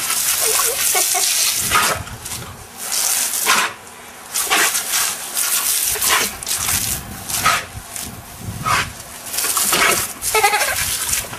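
Water from a garden hose spray nozzle hissing and splattering in repeated bursts as a German shepherd bites and snaps at the jet, with the dog's short cries mixed in.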